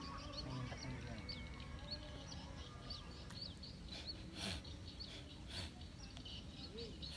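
Small birds chirping: many short, high, faint chirps repeating over a low background hum, with two brief noise bursts about four and a half and five and a half seconds in.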